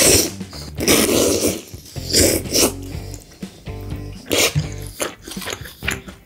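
Spaghetti in tomato sauce being slurped up noisily from chopsticks. There are several slurps: one right at the start, a long one about a second in, two more around two and a half seconds, and another past four seconds, with chewing between them.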